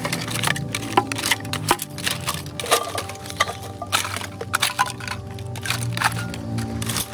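Hands rummaging through a pile of plastic and metal junk: a stream of irregular cracks, clicks and rattles, over background music.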